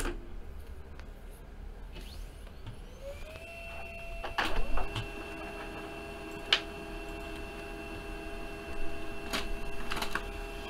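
Printer printing a page: its motor whine rises in pitch about two seconds in and then holds steady, with several clicks and clunks along the way, the loudest a few seconds in.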